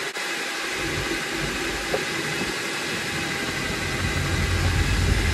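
Steady rushing background noise, with a low rumble that grows stronger near the end and a faint tick about two seconds in.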